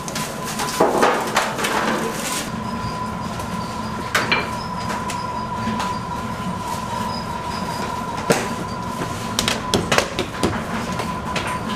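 A steady machine hum with a thin, constant whine, with scattered light clicks and knocks of hands working at the table.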